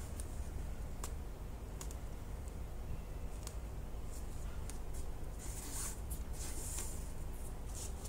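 Faint rustling and a few light clicks of hands working a needle through a crocheted bag and its fabric lining, over a steady low electrical hum.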